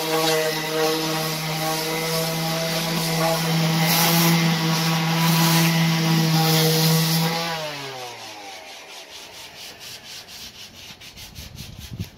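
Corded random orbital sander running steadily against a filled plywood speaker cabinet, then switched off after about seven and a half seconds, its hum falling in pitch as it spins down.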